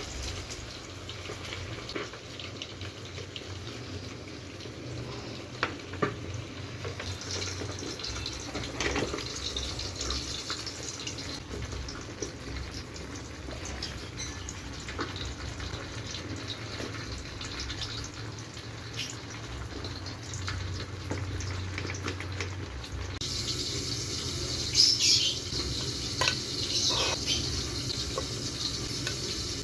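Food frying in a pan, a steady sizzle with occasional small clicks of a utensil. About twenty-three seconds in the sizzle gets louder and hissier.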